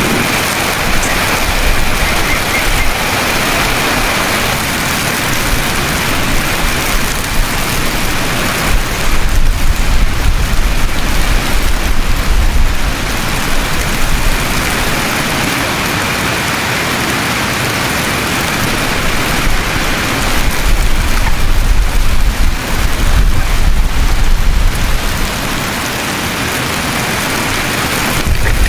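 Steady hiss and patter of falling precipitation in a storm, with two long gusts of wind rumbling on the microphone, about nine seconds in and again about twenty-one seconds in.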